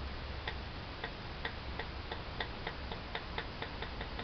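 Regular mechanical ticking that speeds up from about two to about five or six ticks a second, over a low steady hum.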